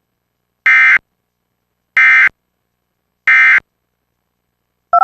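Emergency Alert System end-of-message data signal: three short, identical bursts of the harsh digital data tone, a little over a second apart, marking the end of the alert. Right at the end a different warbling two-note tone starts.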